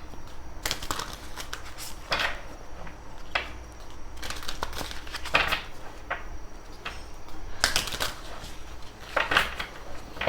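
Oracle cards being shuffled and handled: irregular light snaps and rustles, a dozen or so scattered through, bunched together near the middle and again toward the end.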